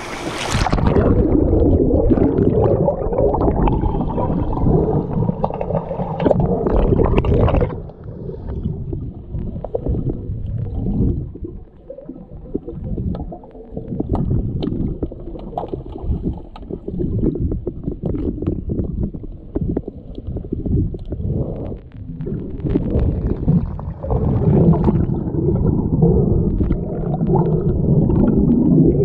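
Muffled churning and gurgling of water heard through an underwater camera during an underwater hockey game, with many small clicks and knocks. It is loudest for the first several seconds and again near the end.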